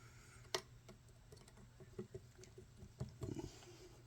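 Scattered small clicks and light knocks of metal parts and tools being handled while assembling an RC crawler axle. The sharpest click comes about half a second in, and a cluster of soft knocks comes about three seconds in.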